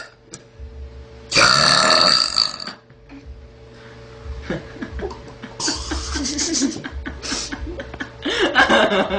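A young girl's loud burp, starting a little over a second in and lasting about a second.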